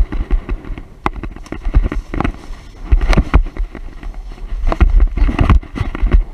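Footsteps and brush rustling as someone pushes on foot through scrub, heard as irregular clusters of knocks and crunches with low thumps.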